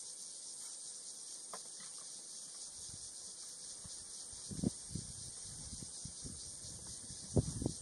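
Giraffe gnawing and sucking on a bone (osteophagy): soft, irregular knocks and crunches of bone against teeth start about three seconds in, with the two strongest about halfway and near the end. A steady high insect chorus runs underneath.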